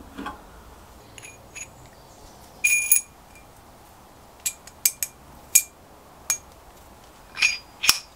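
Machined steel and brass parts clinking together as they are handled and fitted, each knock followed by a short, bell-like metallic ring; the loudest knocks come about 3 s in and near the end.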